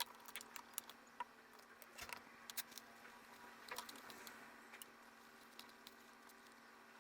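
Scattered small clicks and taps of plastic laptop parts being handled and pried during a keyboard replacement, over a faint steady hum.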